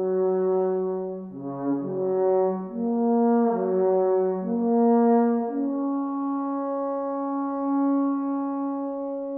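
Wooden alphorns playing a slow tune together in harmony, the notes moving in steps, then settling about five and a half seconds in on a long held chord.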